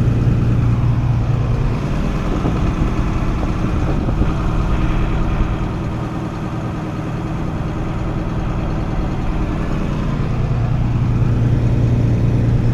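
Combine harvester engine running steadily at working speed while it unloads grain into a truck. The engine note eases a little midway and comes back up near the end.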